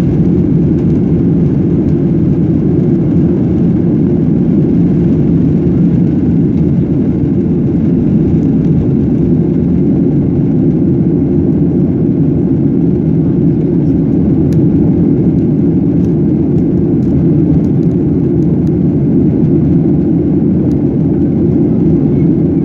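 Inside the cabin of a Boeing 737-800 during takeoff: its CFM56-7B jet engines at takeoff thrust, with airflow noise, as the jet rolls down the runway, lifts off and climbs. A loud, steady, even noise.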